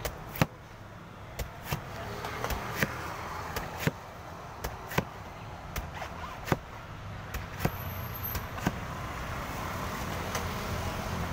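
Heavy knife chopping into a young green coconut's husk, paring it down: sharp, unevenly spaced chops, about one or two a second, over a steady low background hum.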